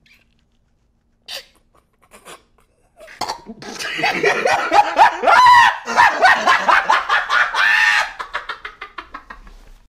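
A man laughing hard, starting about three seconds in and then trailing off into short, fading bursts near the end.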